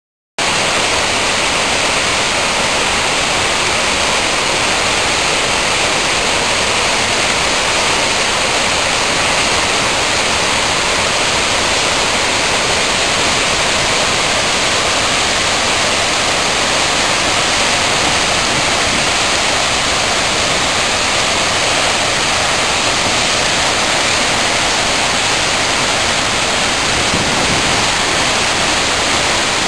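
Flood-swollen waterfall in full spate: a loud, steady rush of churning whitewater pouring over the falls and a dam. It cuts in abruptly just after the start.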